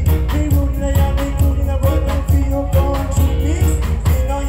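Live reggae band playing with a steady beat: bass guitar, keyboards and drum kit.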